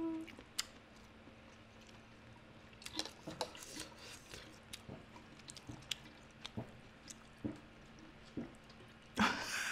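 Close-miked mukbang eating sounds: soft chewing and mouth noises with scattered light clicks of chopsticks on food, then a louder sound near the end.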